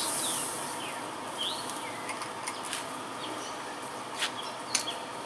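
Small birds chirping in short, scattered calls over a steady outdoor background hiss, with a few light clicks in the second half.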